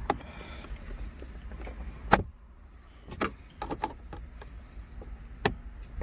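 Plastic interior trim panels being pried and pulled off, their retaining clips letting go with a handful of sharp clicks and knocks spread over a few seconds.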